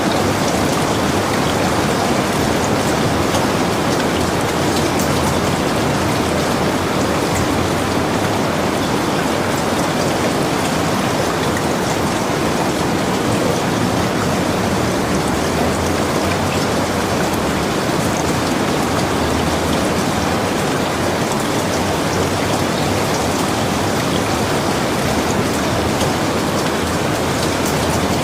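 Steady rain falling, an even hiss with fine droplet patter and no single louder event.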